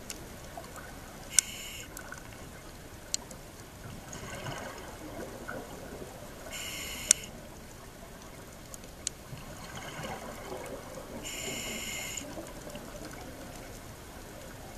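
Scuba diver breathing underwater through a regulator: a short hissing inhale about every five seconds, alternating with the longer, lower rush of exhaled bubbles. A few sharp clicks stand out.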